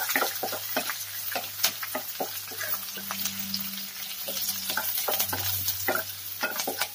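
Ginger-garlic paste, slit green chilli and curry leaves sizzling in hot oil in a non-stick kadai, stirred with a wooden spatula that scrapes and taps the pan many times. A low steady hum runs underneath.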